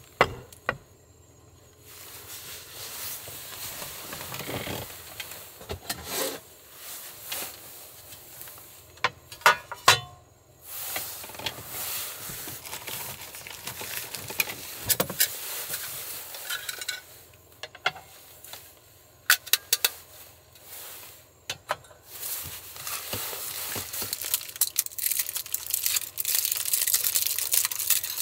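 Assorted handling sounds: scattered clicks, knocks and light clatter with some rustling. A steady hiss builds up over the last few seconds.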